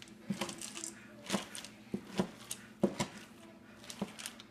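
Plastic utensil stirring raw ground beef, rice and dry kibble in a stainless steel bowl: irregular clicks and scrapes against the bowl, about two a second.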